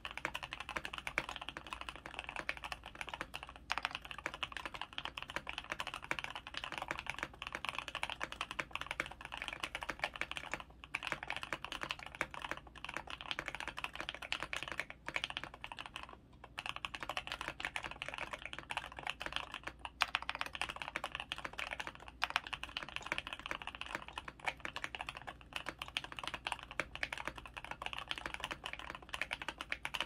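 Fast continuous typing on a KBD67 Lite mechanical keyboard with lubed C3 Tangerine 67g linear switches, a polycarbonate plate, PE foam mod and PBT keycaps: a dense stream of keystroke clacks with a few brief pauses midway.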